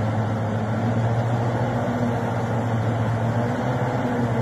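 A motor engine running steadily at a constant speed, a low even hum with no revving.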